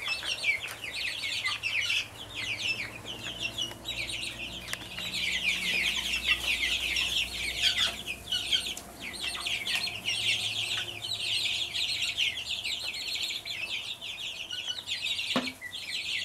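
A flock of young Brahma chicks peeping, many short high chirps overlapping without a break.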